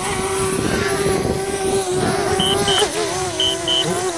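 DJI Spark quadcopter hovering close by, its propellers giving a steady whine that wavers slightly in pitch, over wind rumbling on the microphone. Two pairs of short high beeps sound about halfway through.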